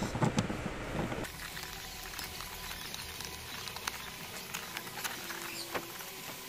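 Scattered light clicks and rustling as plastic wiring connectors and a taped harness are handled at a car's body control module, being unplugged and checked for seating, over a steady hiss.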